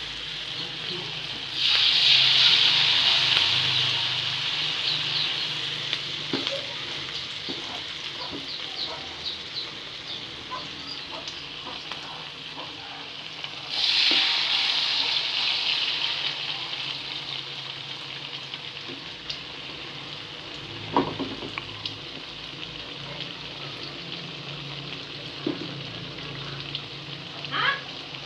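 Bakwan vegetable fritters deep-frying in hot oil, a steady sizzle. The sizzle surges suddenly about a second and a half in and again about fourteen seconds in, fading slowly each time, with a few light clicks later on.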